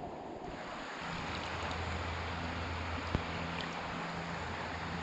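Shallow river water running and rippling over a rocky bed, a steady rushing noise. From about a second in, a low steady hum joins underneath, and there is a single click near the middle.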